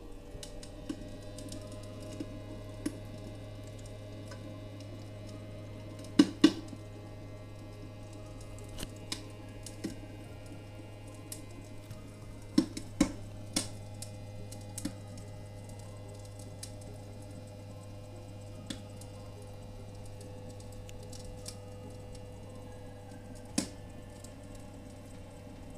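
Recorded crackling of burning firewood played by the fake fireplace's MP3 sound module: scattered snaps and pops, a few much louder, over a steady low hum.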